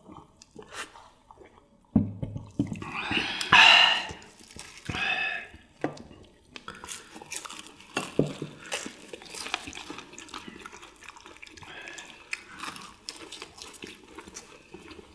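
Beer glasses set down on the table with a knock, followed by loud satisfied "ahh" exhalations after the drink. Then close-miked crunchy chewing of deep-fried battered squid and chicken: many small crisp crackles.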